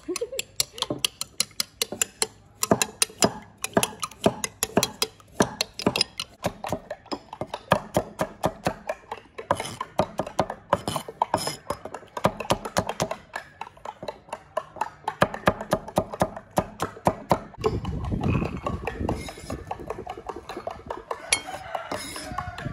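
A spoon beating eggs against a ceramic bowl, then a cleaver chopping carrots on a wooden block in rapid, regular strokes.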